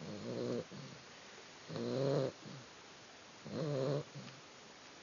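Sleeping puppy snoring: three snores, about one every two seconds, each followed by a fainter short breath.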